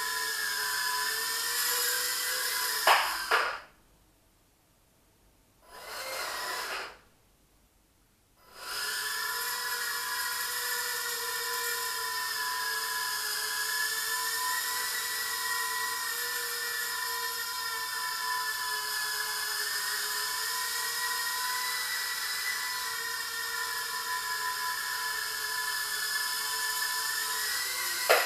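Eachine Turbine QX70 micro quadcopter's motors and propellers whining in flight, the pitch wavering slightly with throttle. About three seconds in there are two sharp knocks and the motors stop. After a brief spin-up, the steady whine returns about five seconds later and runs on, with another sharp knock near the end.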